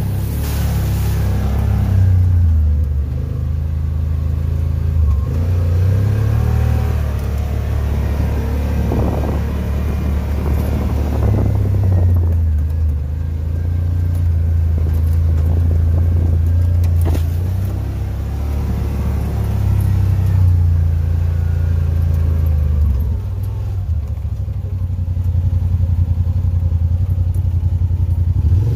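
Side-by-side UTV engine running while crawling over a rough dirt trail, its note rising and falling with the throttle, with occasional knocks from the machine jolting over ruts.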